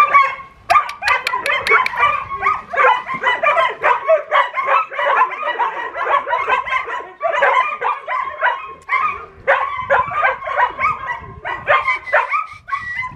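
Collies barking and yipping over and over, short calls coming several a second without a break. A quick run of sharp clicks sounds about a second in.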